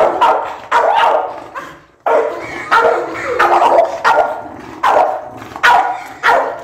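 A dog barking aggressively in quick succession, about ten sharp barks with a brief pause around two seconds in. The dog is lunging at the person at its kennel gate, hostile and trying to bite.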